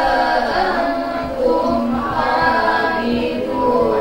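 Women reciting the Quran in a slow melodic chant, a lead voice amplified through a microphone with others joining in, the notes held long and sliding between pitches: a khatam Quran recitation.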